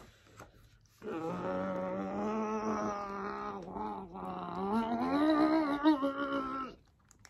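A woman's closed-mouth strained hum, the voice of someone straining while holding their breath: held steady for about three seconds, a brief break, then rising in pitch for a couple of seconds more before stopping.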